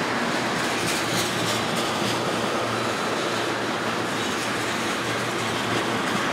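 Freight train of tank cars rolling past: the steady rumble and rattle of steel wheels on the rails, with a few sharper clicks between about one and two seconds in.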